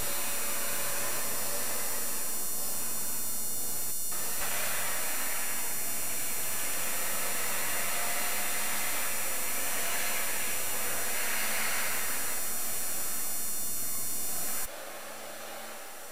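Steady rushing noise with a low hum underneath, dropping abruptly to a much quieter level near the end.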